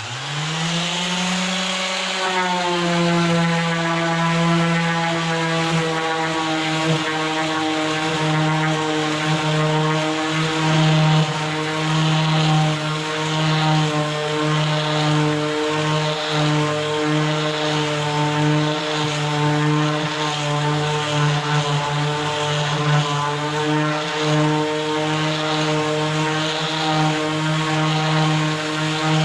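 A woodworking power tool's electric motor starting up, rising in pitch for about two seconds, then running at a steady speed with a whirring hiss on top.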